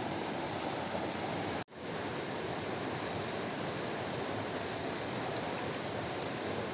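Steady rush of river water flowing over stones, with a brief dropout a little under two seconds in.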